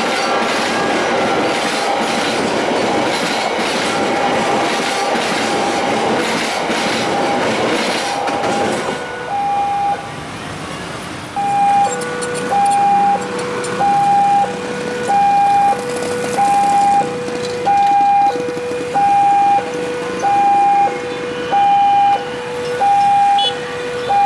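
A passenger train rumbling and rattling past over a level crossing for the first nine seconds or so, with a crossing warning tone sounding through it. After that, a two-tone electronic level-crossing alarm alternates high and low, about one high-low pair a second.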